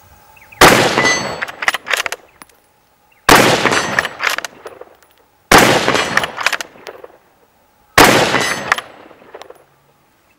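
Four shots from a Lithgow LA102 bolt-action rifle in .243 Winchester, about two to three seconds apart. Each shot rolls away over about a second, with a few sharp clicks after it.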